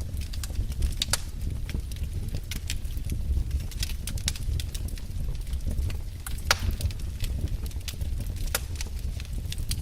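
Wood fire in a fireplace crackling: irregular sharp pops and snaps over a steady low rumble of the flames, with one louder pop about six and a half seconds in.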